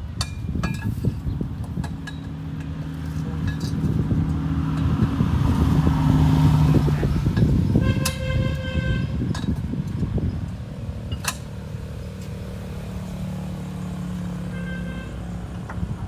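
Engine of a tracked crawler carrier running steadily, its note swelling louder a few seconds in and easing off again. A vehicle horn toots about halfway through and again more faintly near the end.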